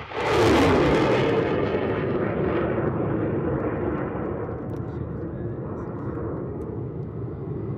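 Rocket fired from an M142 HIMARS launcher: a sudden loud roar of the rocket motor that peaks about half a second in, then a long roar that slowly fades.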